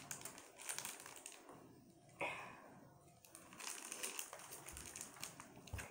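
Faint crinkling and small clicks of a toy's plastic wrapping being picked at and peeled open by hand, with a short rustle about two seconds in.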